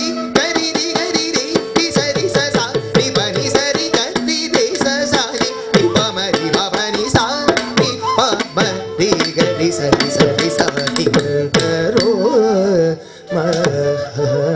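Carnatic music accompanying Bharatanatyam: a gliding melody over a steady drone, with dense, fast hand-drum strokes throughout. A brief lull comes about 13 seconds in before the music resumes.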